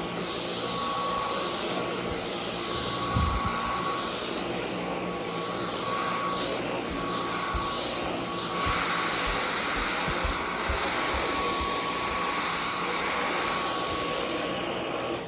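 Dyson V10 Animal cordless stick vacuum running with a steady high motor whine and rush of air, with a few low knocks in the middle; it is switched off at the very end.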